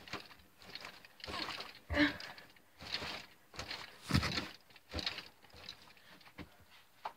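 A bench vise being cranked down on a battery: a run of scraping, rasping strokes about once a second. A heavy thud about four seconds in comes as the camera topples over onto the bench.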